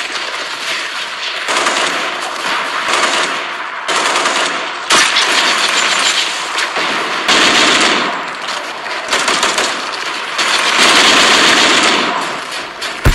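Automatic-rifle gunfire sound effects: long rapid-fire bursts of a second or two each, stopping and starting several times, with shots overlapping.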